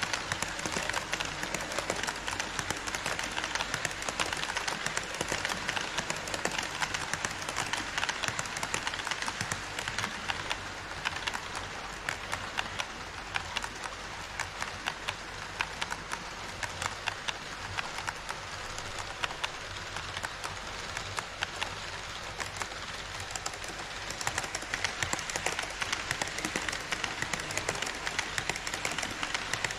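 HO-scale model trains rolling close by on Kato Unitrack: a steady rattle of small metal wheels with dense fine clicks over the rail joints. The rattle eases a little midway and grows again near the end as the E5 Shinkansen model comes past.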